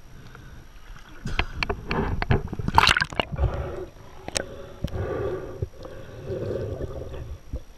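Seawater sloshing and splashing against a waterproof action-camera housing at the surface, with a loud splash about three seconds in, then muffled underwater gurgling with scattered sharp clicks.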